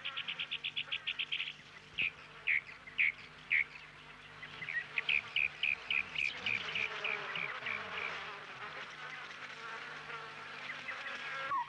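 Insects chirping: a quick run of rapid pulses at the start, then a few single chirps about half a second apart, then a faster series of chirps that fades away, over a faint steady hum.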